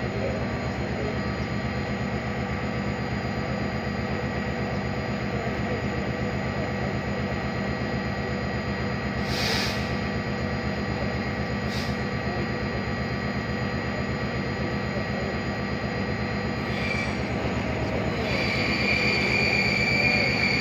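A steady low mechanical rumble with a fine rapid pulse, broken by two short hisses about ten and twelve seconds in. Near the end a Stadler FLIRT electric multiple unit arrives, and a high steady whine rises over the rumble as it pulls in.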